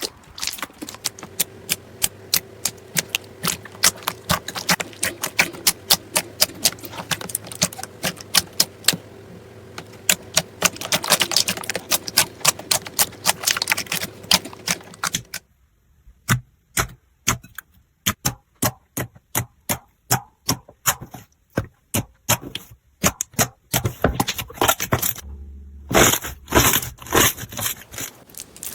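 Slime being pressed and worked, giving a fast run of sharp clicks and pops over a faint steady hum. About fifteen seconds in, the sound changes to a quieter background with the clicks more spaced out.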